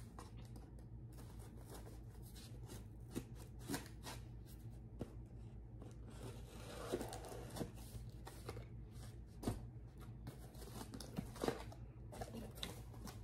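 Packaging being torn open and handled by hand: scattered rustles, crinkles and small clicks, over a low steady hum.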